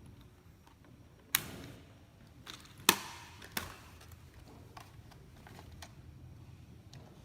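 A few sharp clicks and knocks, the loudest about three seconds in, with fainter ticks between, over a low steady background hum.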